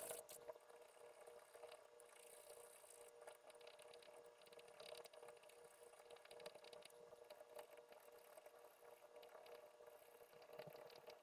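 Very faint, irregular strokes of a small hand file cutting a steel rifle ejector held in a wood-jawed vise, over a faint steady hum.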